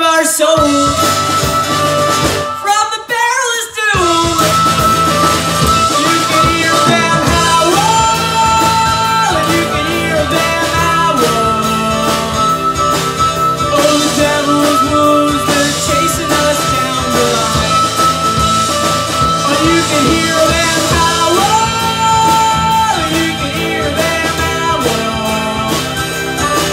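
Live blues-rock band playing an instrumental stretch: drum kit, electric bass and strummed acoustic guitar, with a harmonica playing long held notes over the top. The bass and drums drop out briefly about three seconds in before the band comes back in.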